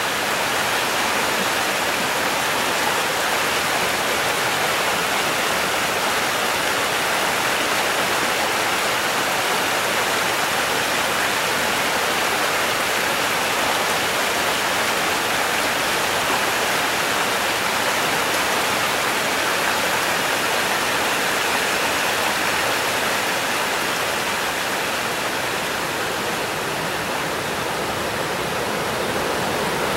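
Rocky mountain stream rushing over and between boulders: a steady, even rush of water.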